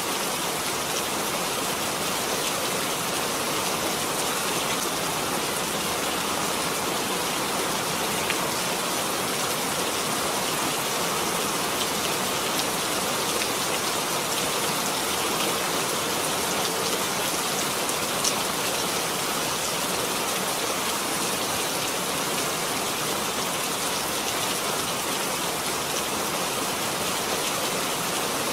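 Steady rain falling, an even, unbroken hiss of drops on surfaces, with now and then a single louder drop tap, the clearest about eighteen seconds in.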